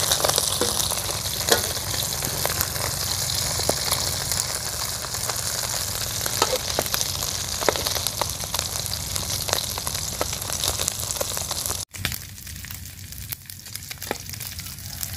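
Small mixed freshwater fish frying crisp in hot oil in a wok, a steady sizzle with occasional clicks of the metal spatula against the pan as they are stirred. The sizzle drops quieter about twelve seconds in.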